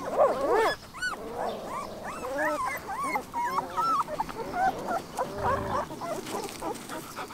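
A litter of young puppies whimpering and squeaking, many short rising-and-falling cries overlapping one after another, as they crowd under their standing mother to nurse.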